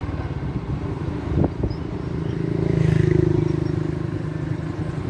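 Vehicle engine running with a fast, even pulse, swelling louder about three seconds in. Two sharp knocks come about a second and a half in.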